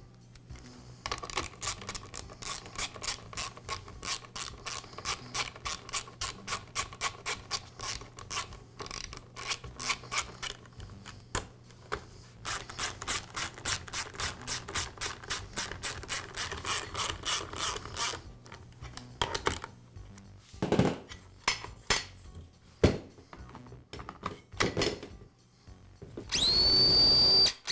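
Socket ratchet clicking rapidly and evenly in two long spells as the nuts on the lopper's chain cover are tightened. A few separate knocks follow, and near the end a rising tone comes in.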